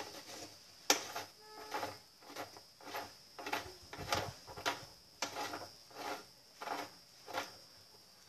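Metal nut being turned down the basket shaft of a GE 15 kg washing machine with a hand tool: a regular run of short metallic clicks and scrapes, about two a second, the sharpest about a second in. The nut is a left-hand thread, tightened counter-clockwise, and is going on smoothly.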